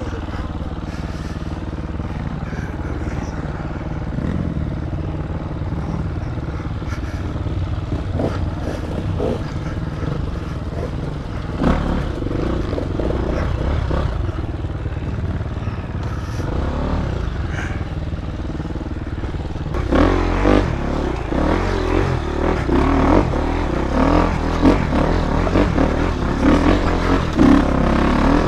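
Dirt bike engine running at low revs over a rough trail, with scattered knocks and rattles from the bike. About two-thirds of the way through it gets louder and choppier as the throttle is worked harder up a climb.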